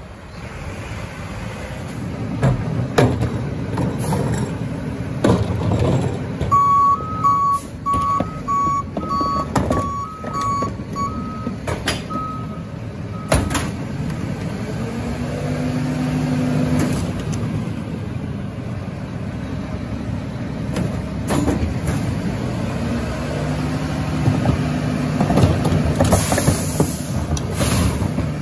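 Rear-loader garbage truck running at the kerb, its backup alarm beeping in quick pulses for about six seconds, with scattered knocks and bangs. Twice a steady hum rises over the engine and fades, and near the end a short hiss.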